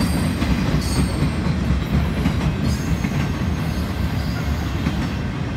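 BNSF freight train of flatcars rolling past: a steady low rumble of wheels on rail, with faint high wheel squeals about a second in and again a little later.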